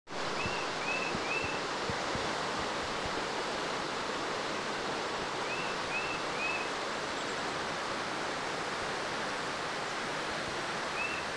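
Steady rushing of fast-flowing floodwater. A bird calls over it in runs of two or three short chirps, three times.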